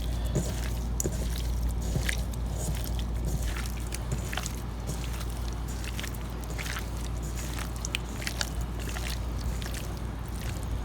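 Raw chicken thigh strips being mixed with dry seasoning, giving irregular wet squishing and slapping sounds over a steady low hum.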